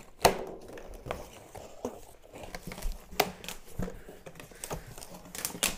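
A cardboard shipping box being opened with a knife: plastic strapping and packing tape cut, cardboard flaps pulled back and a foam packing insert handled. It is heard as scattered sharp clicks, scrapes and rustles, the sharpest click about a quarter second in.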